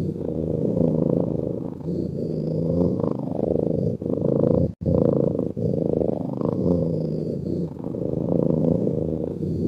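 Cat's continuous rumbling purr-like breathing, swelling and easing with slow breaths. The sound cuts out for an instant about halfway through.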